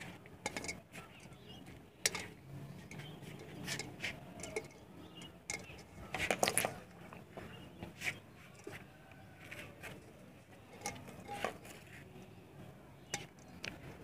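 Pliers twisting steel wire tight around the neck of a clay pot: scattered small clicks and scrapes of metal on wire and wire on earthenware, with the loudest cluster about six seconds in.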